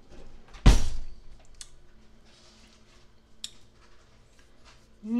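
A single sharp clack of a utensil against the pot less than a second in, then a few faint ticks, and near the end a short hummed "mmm" from someone tasting the bisque.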